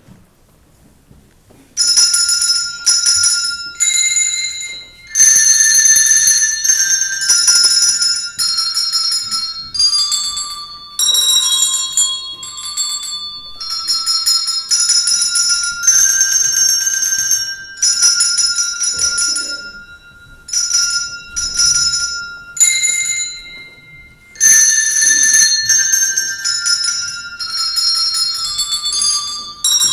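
A handbell choir playing a hymn tune: chords and single notes of small handbells rung in a steady rhythm, each stroke ringing on with high overtones. The ringing starts about two seconds in, after a brief quiet.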